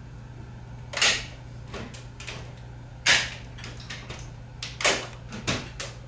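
Plastic intake grille and latches of an LG one-way ceiling-cassette air conditioner clicking and snapping as hands press the panel shut, several sharp clicks spaced a second or two apart over a faint steady hum.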